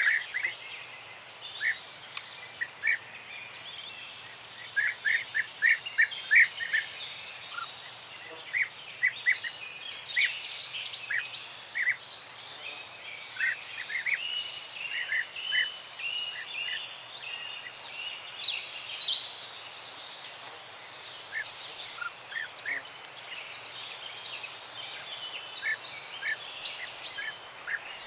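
Several small songbirds chirping in a morning chorus: quick, sharp chirps come in clusters, busiest around the middle. A thin, very high note repeats about once a second throughout, over a steady outdoor background hiss.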